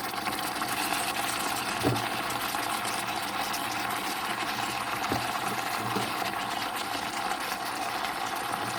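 Steady hiss of a pot of food cooking on the stove, with a few faint knocks.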